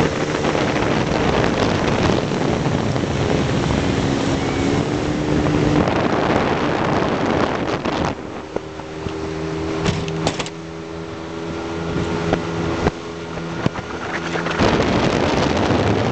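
Motorboat engine running steadily under a loud rush of wind and water spray. The rush eases for several seconds in the middle, leaving the engine hum clearer, then builds again near the end, with a few sharp clicks along the way.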